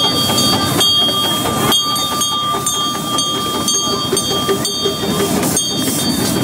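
Miniature park railway train, a small steam-style locomotive and its loaded riding cars, rolling past on the track: a steady rumble of wheels on rails with steady high-pitched tones ringing above it.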